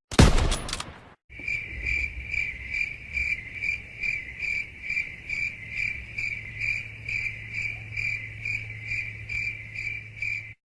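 A short loud hit, then crickets chirping steadily at about two chirps a second over a low hum: the stock 'crickets' sound effect used for awkward silence.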